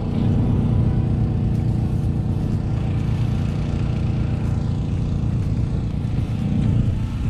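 Steady low rumble of an engine running, even throughout.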